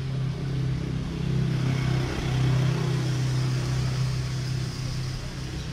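Motor vehicle engine running steadily as a low drone, with traffic noise over it that swells a little in the middle.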